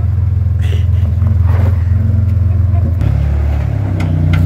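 Lifted Toyota 4Runner's engine running at low revs as it crawls up a rock ledge, its note shifting about three seconds in. A few short clicks near the end.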